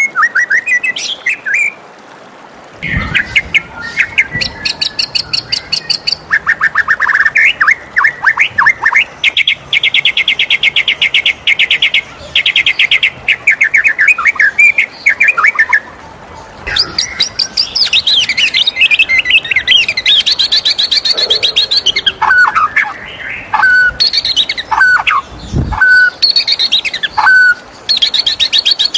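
White-rumped shama singing a loud, varied song of fast trills, sharp down-slurred whistles and rapid chattering rattles, in phrases broken by short pauses.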